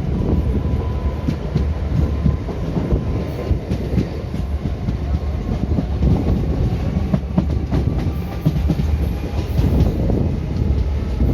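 Indian Railways ICF passenger coach running along the track: a steady low rumble with the wheels clicking and clattering over the rails.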